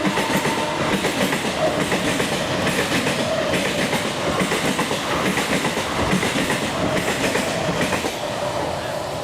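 A train passing at speed, its wheels clattering rapidly over the rails, loud and steady, easing a little near the end.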